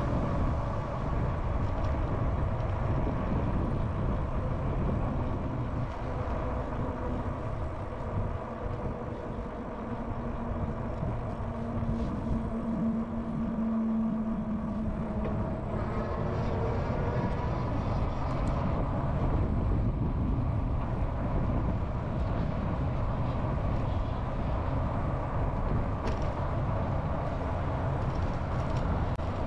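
Wind buffeting a bike-mounted action camera's microphone during an e-bike ride, with steady rumble from riding and a faint steady mechanical whine.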